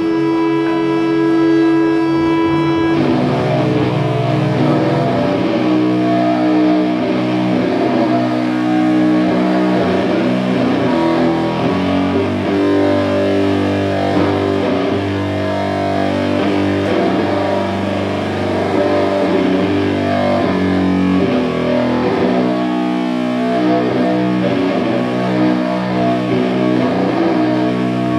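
Live doom metal band playing heavy distorted electric guitar and bass. A chord is held for about the first three seconds, then a slow riff of sustained notes follows.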